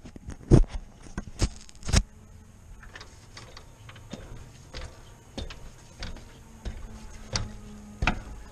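Someone climbing a metal-runged extension ladder: irregular sharp knocks and clanks of feet and hands on the rungs, loudest in the first two seconds and again near the end.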